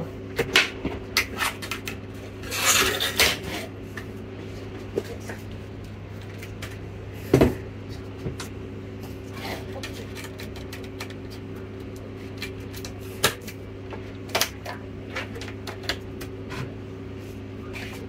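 Clicks, taps and scraping as a laptop motherboard and its chassis are handled and fitted together on a wooden workbench, with one louder knock about halfway through, over a steady low hum.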